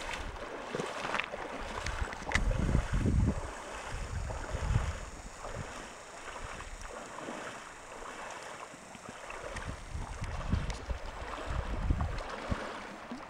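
River water running steadily, with gusts of wind rumbling on the microphone around two to three seconds in and again around ten to twelve seconds.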